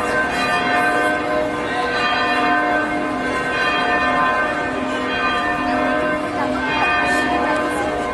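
Church bells ringing, a dense mix of overlapping ringing tones held at an even level.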